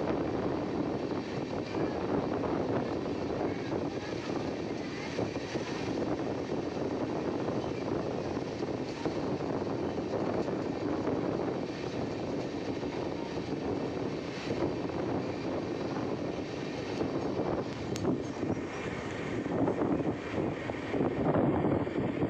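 Durg–Nautanwa Express passenger train running at speed, heard from an open coach doorway: a steady rumble of wheels on the rails with air rushing past.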